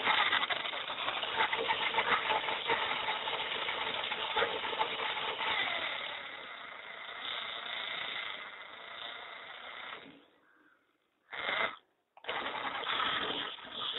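Small DC motors of a homemade remote-control car running, a whirring whine with rattling. The sound cuts out twice near the end, with a short burst in between, then starts again.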